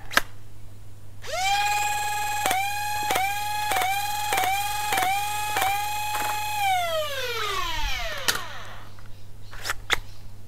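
Lepus mini flywheel blaster's Merlin 130-size flywheel motors spinning up to a high whine, dipping briefly in pitch about seven times at even spacing as foam darts are pushed through and fired, then winding down in a long falling whine. A click comes before the spin-up, and a few sharp clicks come near the end.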